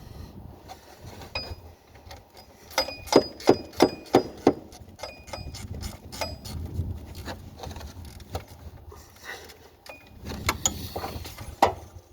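Sharp metal-on-metal clinks and knocks of a wrench working on the alternator's mounting bolts, a quick run of about three a second a few seconds in and a few more near the end.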